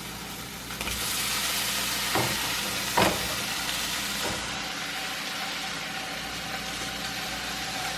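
Filet mignon sizzling in a hot pan, a steady frying hiss that grows louder about a second in, with a few brief clicks a couple of seconds in and a steady hum underneath.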